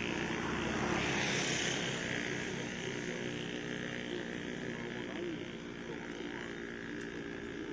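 A vehicle engine running steadily, with a rushing swell about a second in that fades away.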